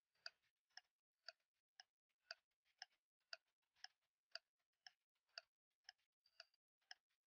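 Countdown-timer clock-tick sound effect: faint, even ticks, about two a second.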